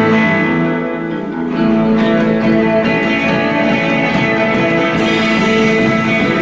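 Live band playing amplified electric guitars, ringing out held notes and chords.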